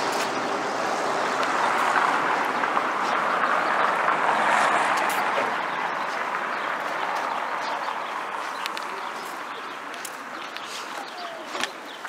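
Traffic noise of a passing vehicle: a steady rushing hum that swells to its loudest about four seconds in and then slowly fades away. A sharp click near the end.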